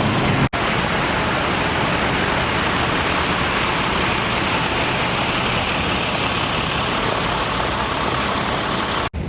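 Outdoor water fountain splashing: a steady, continuous rushing of falling water. It cuts out briefly about half a second in and again just before the end.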